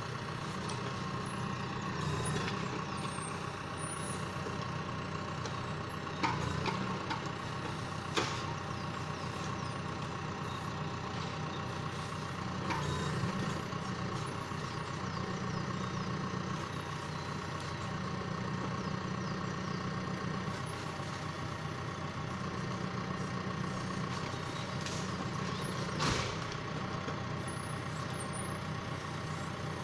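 John Deere 6115M tractor's diesel engine running steadily while it powers the hydraulic timber crane loading logs onto a forestry trailer. A few sharp knocks of logs and grapple come through, the loudest near the end.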